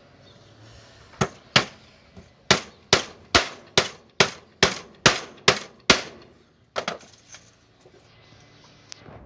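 Hammer driving a nail into wooden planks: about a dozen sharp strikes at a steady pace of two or three a second, then a short pause and two more blows.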